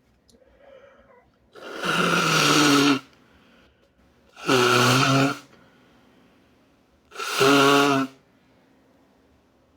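A person blowing their nose into a tissue three times, each blow a sustained honking blast of about a second.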